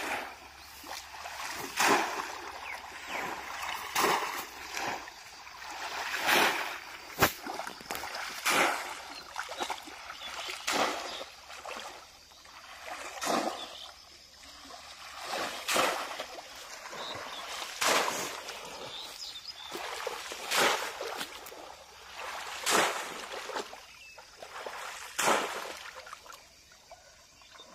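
Water splashing as a bowl scoops and flings pond water, about one splash every two to two and a half seconds, with a single sharp knock about seven seconds in.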